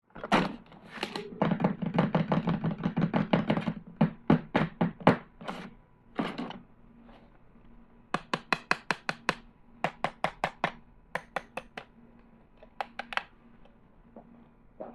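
Sharp clicks and knocks of hard plastic toy tools and packaging being handled, with a fast run of clicks lasting about two seconds early in the sound, then single clicks in short groups.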